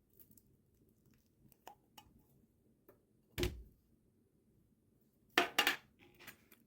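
Kitchenware being handled and set down: a few faint clicks, a dull thunk about three and a half seconds in, then two sharp clattering knocks close together near the end and a softer one after.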